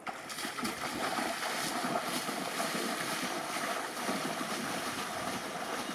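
Water splashing and sloshing as a person in waders runs through knee-deep muddy water, a steady run of uneven splashes.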